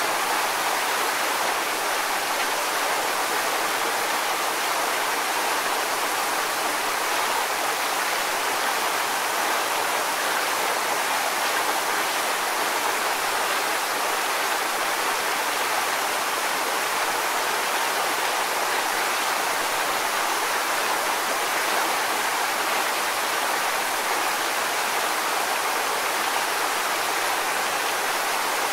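Waterfall: water pouring and splashing in a steady, even rush, with more hiss than low rumble.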